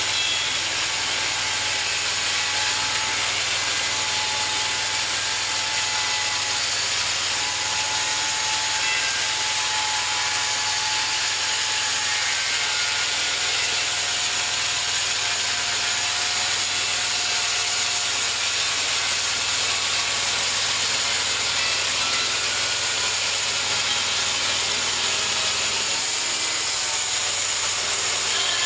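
Homemade bandsaw mill running steadily, its blade sawing through a cherry log in one unbroken cut.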